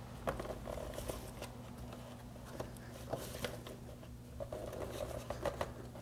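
Faint clicks, scrapes and rubbing of plastic and rubber parts as the air intake tube is worked into place on the air filter housing, over a steady low hum.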